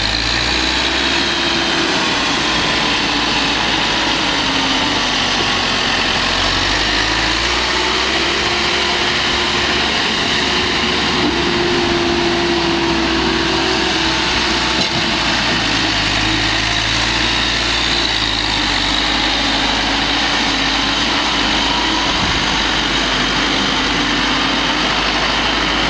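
1997 JCB 217S backhoe loader's diesel engine running steadily, its pitch drifting slowly up and down.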